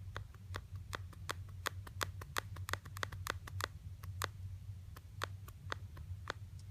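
iPhone 6 screen clicking where the display has come away from the chassis at the top-right edge near the power button. It is an irregular run of sharp clicks, coming quickest in the middle and thinning out towards the end.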